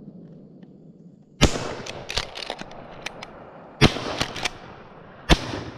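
Shotgun shots: three loud shots, roughly two and a half and one and a half seconds apart, each trailing off in an echo, with several fainter shots cracking in between.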